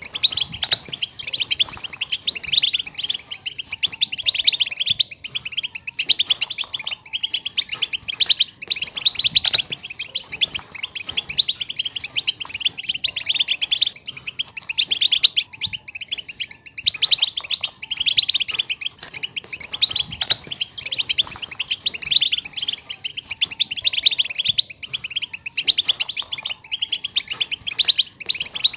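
European goldfinch chirping and twittering in quick, unbroken runs of high calls.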